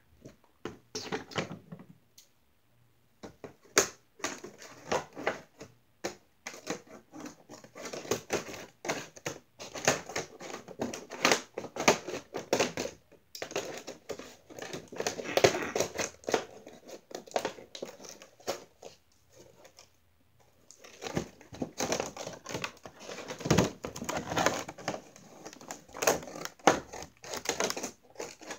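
A cardboard-and-plastic doll box being handled and opened: irregular plastic crinkling and rustling with sharp crackles and snaps, broken by two short pauses.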